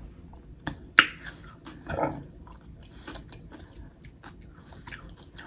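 Close-up mouth sounds of chewing a mouthful of shrimp and rice: wet smacking and small clicks, with a sharper click about a second in and a louder burst about two seconds in.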